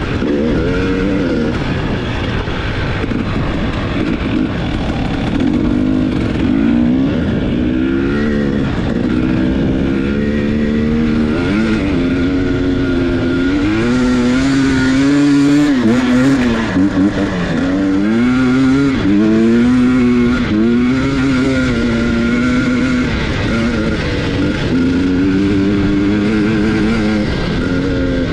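2022 KTM 300 XC TPI's fuel-injected 300 cc two-stroke single-cylinder engine being ridden hard through sand, its pitch rising and falling again and again with the throttle, over steady wind noise on the microphone.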